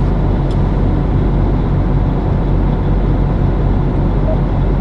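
Truck's diesel engine idling steadily, heard from inside the cab.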